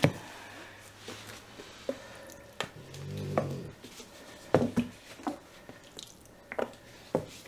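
Scattered light clicks and knocks of plastic paint squeeze bottles being handled and set down, a second or so apart.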